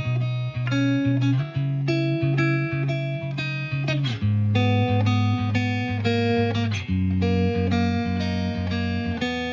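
Background music: guitar notes plucked at a steady pace over a bass line.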